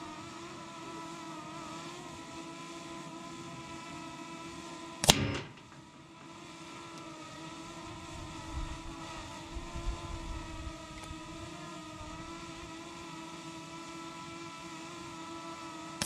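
A hovering camera drone gives a steady hum of several held tones. About five seconds in, one sharp crack of an Umarex Ruger Impact Max break-barrel air rifle shot rings out with a short ring after it, and a second shot cracks at the very end.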